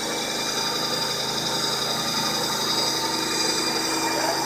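CNC milling machine spindle spinning up, its whine rising and settling to a steady high pitch in the first second, then running steadily over the machine's hum.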